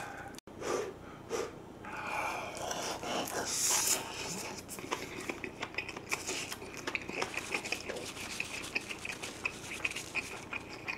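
Close-miked eating of a bite of monkfish and rice wrapped in seaweed: a louder, noisier bite in the first few seconds, then steady wet chewing with small mouth clicks a few times a second and breathing through the nose.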